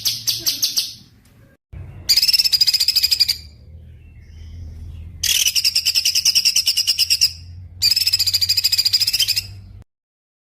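Small songbird singing rapid, high-pitched trills of quickly repeated notes, in bouts of one to two seconds with short pauses between, over a low steady hum; the recording cuts off suddenly near the end.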